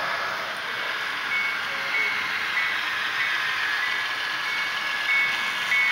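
A small electronic bell on an HO scale model railroad layout dings at an even pace, about once every 0.6 seconds, starting about a second in. It rings over a steady hiss.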